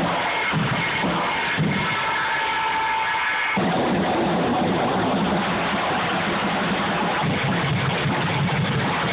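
Drum kit being played, a dense noisy clatter of hits. About three and a half seconds in it thickens into a continuous wash.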